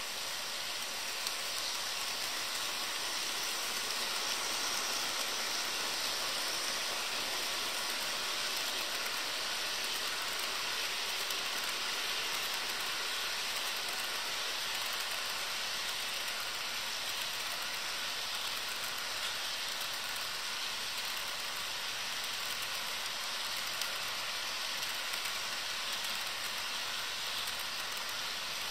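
HO scale model freight train rolling past on the track: a steady rushing hiss of many small wheels on the rails, growing a little louder over the first few seconds as the train nears and then holding even.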